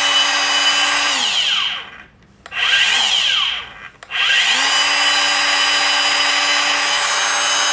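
Dongcheng DCMY185 7-inch cordless brushless circular saw running free with no load, a steady, smooth high whine. It winds down about a second and a half in, gives a short spin-up and wind-down, then starts up again about four seconds in and begins winding down near the end.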